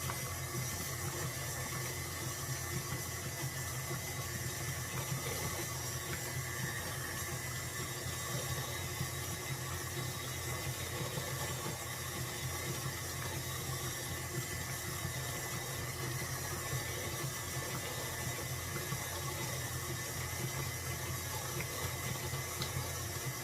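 Stand mixer running steadily on a low speed, beating cultured sour cream that is splashing in the bowl as it turns to butter.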